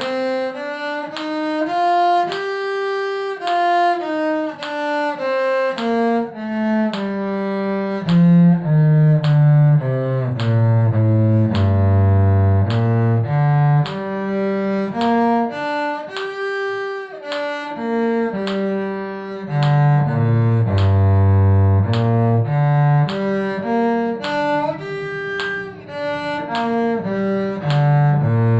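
Cello bowing a two-octave scale, one held note after another, about two a second. It steps down to its lowest note and climbs back up, twice.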